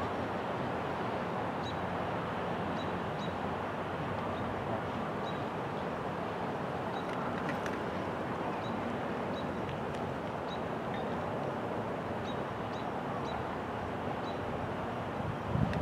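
Steady outdoor rushing noise under a stormy sky, with a faint, high, short chirp repeating roughly every half second to second. Wind buffets the microphone right at the end.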